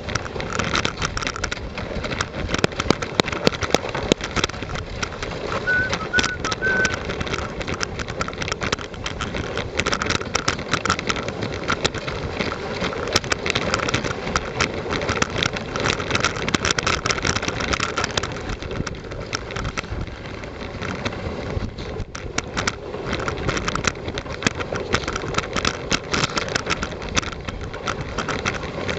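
A dog team pulling a wheeled rig at a run over a snow-covered dirt road: a steady crunching and rattling from the wheels and the moving team. A few short high squeaks come about six seconds in.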